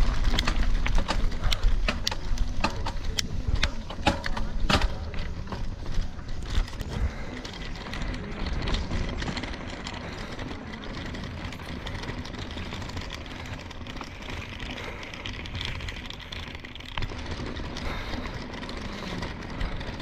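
Bicycle being ridden, heard from on the bike: a run of sharp rattles and clicks with a heavy low rumble over the first several seconds, then a quieter, steady rolling noise.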